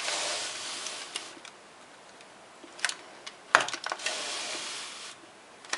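Baking paper lining a cake tin rustling as the tin is handled, in two stretches, with a few sharp clicks in between.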